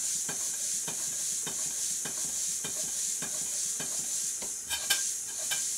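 Stuart 5A model steam engine running slowly: a steady hiss with a regular exhaust beat about three to four times a second. Its valve timing is being adjusted, and it runs slightly better but still not right.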